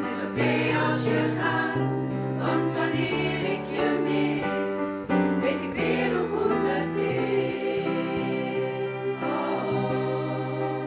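Women's choir singing a Dutch song in harmony, with long held chords.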